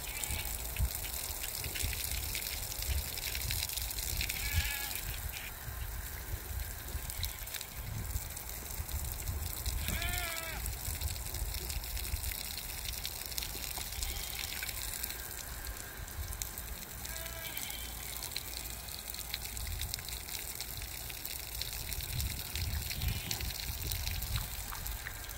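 Piglets and a sow chewing and slurping a watermelon, a steady wet crunching. There are about four short bleat-like animal calls, the clearest about ten seconds in.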